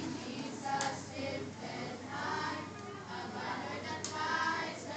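Children's choir singing together in short sung phrases.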